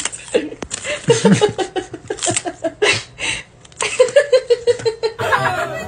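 A person laughing in repeated bursts, ending in a quick, even run of ha-ha pulses.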